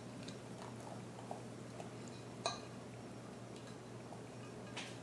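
A few faint, scattered clicks and taps as diced ham is sprinkled by hand from a small plate into a ceramic baking dish, with one slightly louder tap about halfway through, over a low steady hum.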